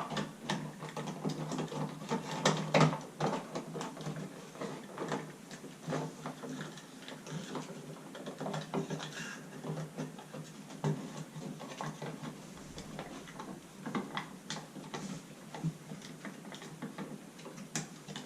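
Irregular clicks, knocks and scrapes of a light switch and its wires being pushed and folded into an electrical wall box by hand.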